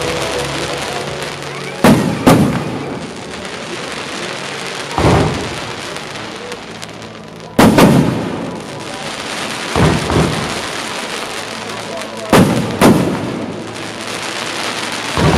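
Aerial firework shells bursting overhead, about nine sharp bangs at uneven intervals, several in quick pairs, over a steady hiss between them.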